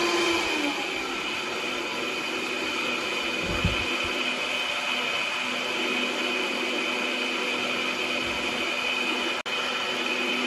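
Vitamix blender motor running steadily at high speed, churning a thick smoothie a second time to break up a stray chunk. The sound drops out for an instant near the end.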